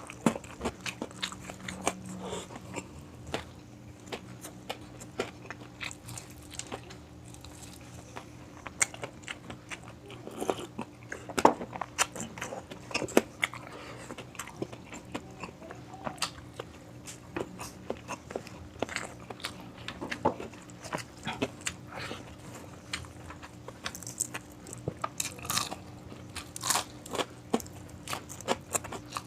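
A person biting and chewing crisp fried food close to the microphone, with irregular loud crunches and crackles, the loudest about a third of the way in.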